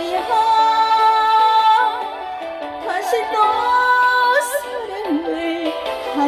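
Korean trot song: the melody holds two long notes, with gliding phrases between them, over the backing track.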